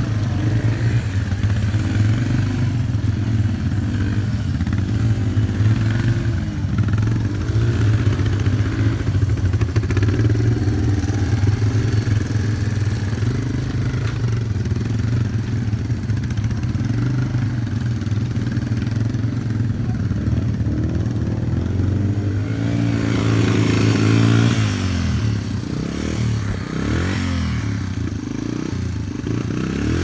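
Small motorcycle engine running at low revs as the bike labours through deep mud, the revs rising and falling in the second half.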